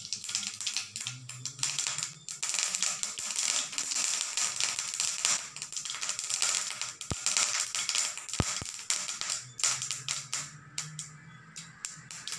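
Cumin seeds spluttering and crackling in hot oil in a non-stick pan: dense rapid pops over a sizzling hiss, thinning out to sparser pops near the end.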